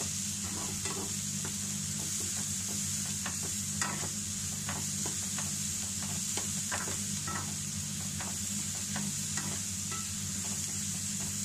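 Chopped onions and curry leaves frying in oil in a nonstick pan, sizzling steadily while a steel spatula stirs them, scraping and tapping against the pan about twice a second in an irregular rhythm. This is the onions being sautéed down to soften and brown for a curry gravy base. A steady low hum runs underneath.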